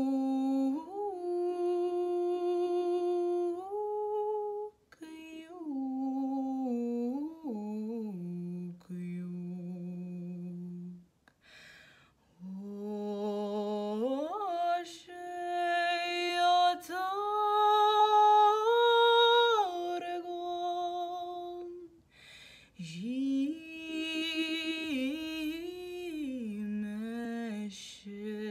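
A young woman singing a Tatar lullaby unaccompanied, in long held notes with vibrato and ornamented turns. Her phrases are broken by short pauses for breath, and the line climbs to its highest, loudest notes about two thirds of the way through.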